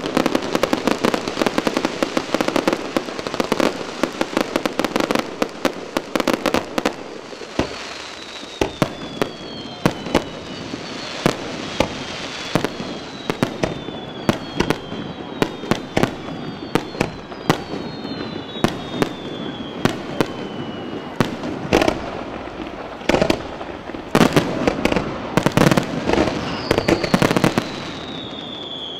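Fireworks display: dense crackling and rapid bangs of bursting shells for the first several seconds, then spaced-out bangs with several whistles that fall in pitch, and another dense run of bangs about three-quarters of the way through.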